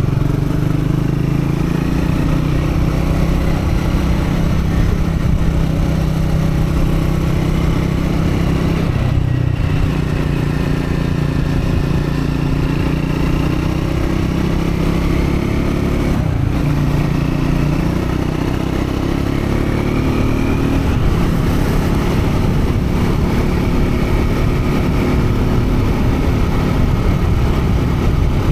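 Triumph Scrambler 400X's single-cylinder engine pulling steadily at moderate revs while being run in, its note breaking and changing pitch briefly about nine, sixteen and twenty-one seconds in, as at gear changes. Wind buffeting the microphone underneath.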